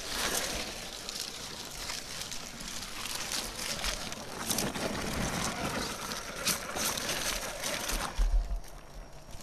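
ZP1004 RC crawler truck driving over rock and dry fallen leaves, with a steady crackle and crunch of leaves and grit under its tyres. A few low thumps come about eight seconds in as it climbs onto a rock ledge.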